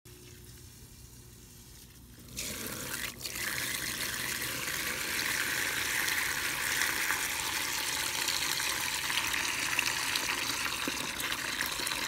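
Water gushing in and churning against a wet sand dam; the steady rush starts suddenly about two seconds in.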